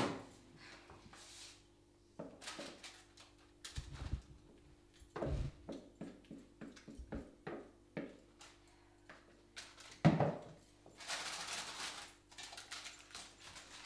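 Cooking sounds: a wooden spoon scraping and tapping a plastic mixing bowl over a frying pan, as batter is scraped out, in scattered light knocks. One louder knock comes about ten seconds in, followed by a second or so of hiss.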